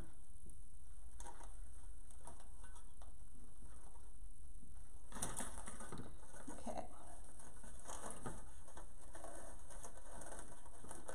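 Burlap deco mesh rustling and crackling under hands as a sign is worked through it, in scattered bursts, the loudest about five seconds in, over a low steady hum.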